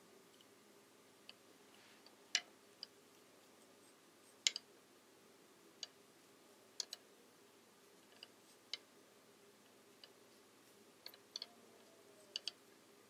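Wooden knitting needles clicking against each other as stitches are knit: faint, irregular clicks, about one a second, some in quick pairs.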